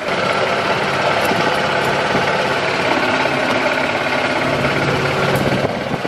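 Gas golf cart engine running steadily while the cart is driven.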